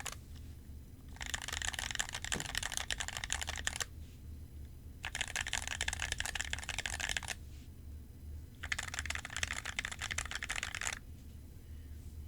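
Typing on an NK65 Entry Edition mechanical keyboard with lubed Gateron Clear switches and Gateron Black switches on the modifier keys: three runs of rapid keystrokes, each a couple of seconds long, with short pauses between them.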